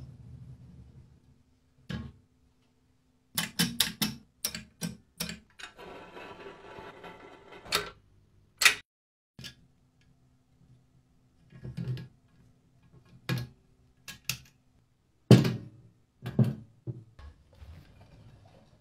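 A blue folding kick scooter with a spring-suspension fork being handled: a run of sharp clicks and knocks of its metal parts, with a short rattling stretch about six seconds in.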